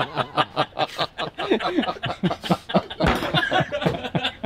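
A man laughing hard, in a long run of quick repeated bursts.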